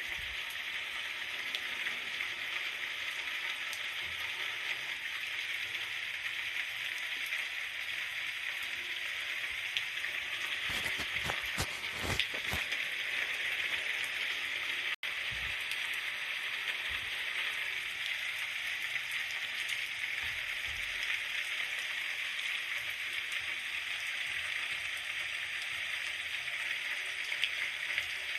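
Steady rain falling, an even hiss, with a cluster of low thuds a little before halfway. The sound cuts out for an instant about halfway through.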